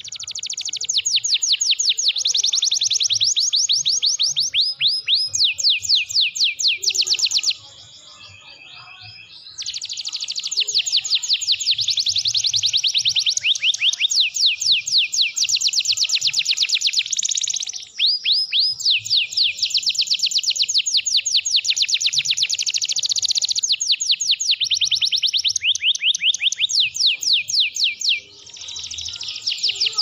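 Domestic canary singing long rolling trills of fast, repeated notes, switching from one trill to the next, with a short break about eight seconds in and two brief breaks later on.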